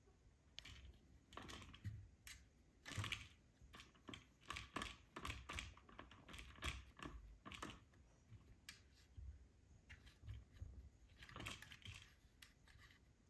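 Faint, irregular clicks and scratching as a kitten paws at a plastic catch-the-mouse toy, its claws tapping and raking the plastic and the scratch pad. The taps come in quick clusters through the first two-thirds and again briefly near the end.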